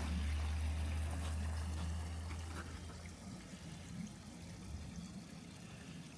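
Water of a partly frozen waterfall splashing and trickling steadily, with a low rumble that fades out about three seconds in.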